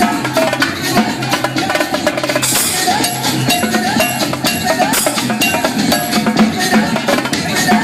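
Dance music track with live drumming over it: rapid stick strikes on drums, many a second, over a pulsing bass line.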